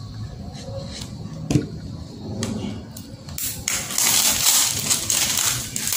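Cellophane wrap on an eyeshadow palette being cut open with a utility knife: a few sharp clicks and scrapes, then from about three and a half seconds in, a loud steady crinkling and tearing as the plastic is peeled off.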